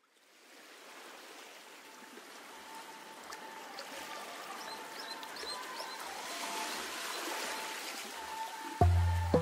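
The opening of an electronic track built from water field recordings: a rushing, stream-like hiss fades in and swells, with a few bird-like chirps and faint soft low pulses about twice a second. A deep bass beat comes in near the end.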